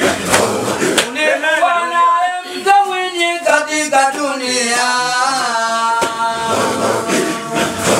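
A solo male voice chanting a religious dhikr line through a microphone, in long held notes with wavering ornaments. Before and after it comes the men's rough, breathy rhythmic group chanting.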